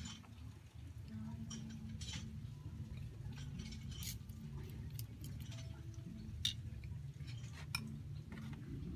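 A metal spoon clinking and scraping against ceramic bowls while white powder coating is stirred and scooped: a scattering of sharp clinks over a low steady hum.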